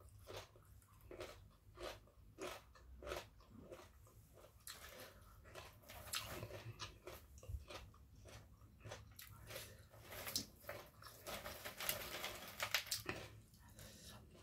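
A person chewing crunchy food: steady chews about two a second, then denser, louder crunching from about five seconds in that stops shortly before the end.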